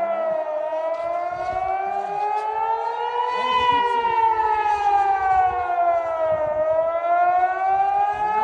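Air-raid warning siren wailing, two tones sounding together, their pitch falling and rising slowly in glides of about three seconds each.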